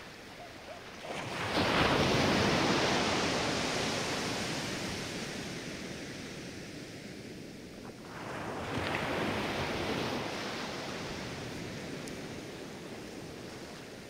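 Small sea waves breaking on a sandy beach and washing up the shore, over a steady hiss of surf. Two waves break, about a second and a half in and again about eight seconds in; each rises quickly and fades slowly.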